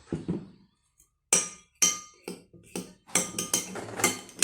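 A stirring utensil clinking and knocking against a bowl as slime is mixed: a run of sharp, uneven taps starting about a second in.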